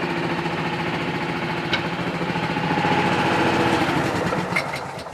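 The Pluk-O-Trak picking platform's small 13 hp Honda engine running steadily. Around the middle a high squeal joins in, which the owners put down to the V-belt slipping. The engine is switched off near the end and dies away.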